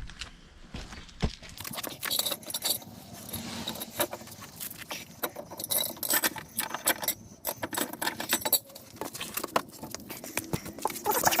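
Irregular metallic clinking and rattling of hand tools and car parts being handled, in a quick uneven run of sharp clicks.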